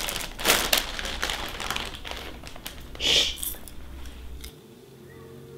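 Plastic-foil snack bag crinkling and crackling as a hand works in it, a dense run of small sharp crackles with a louder burst about three seconds in. The crackling dies away after about four and a half seconds, leaving a quiet stretch.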